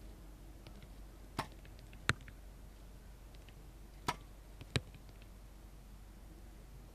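Compound bows being shot twice, about three seconds apart. Each shot is a sharp crack followed about two-thirds of a second later by a second crack, the arrow hitting the target.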